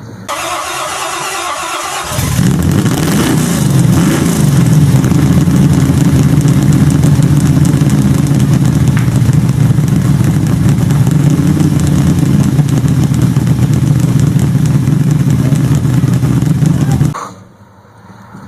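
Holden HJ's engine being started: the starter cranks for about two seconds, the engine catches and runs loudly and steadily, then cuts off suddenly near the end.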